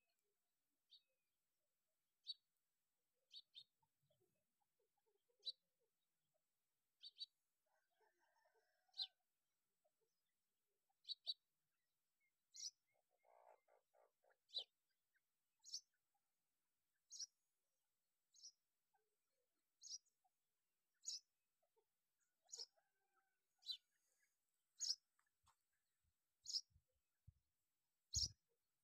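Grey francolins (teetar) giving short, high chirps about once every second or so, some in quick pairs, with a single soft thump near the end.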